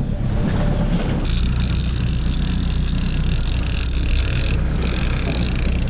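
A boat's engine runs steadily with a low drone while trolling. About a second in, a steady high hiss joins it and breaks off briefly near the end.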